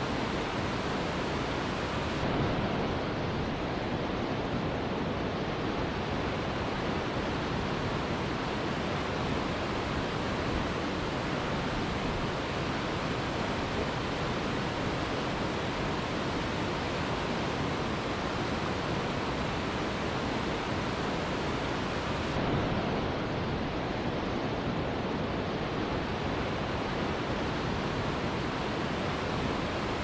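Waterfall rushing: a steady, even wash of falling water.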